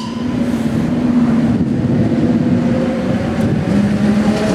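Electric commuter train running past on the rails: a steady rumble with a low electric hum.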